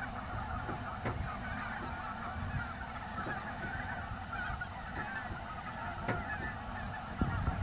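A large flock of snow geese calling as it flies in low, a dense continuous chorus of many overlapping honks.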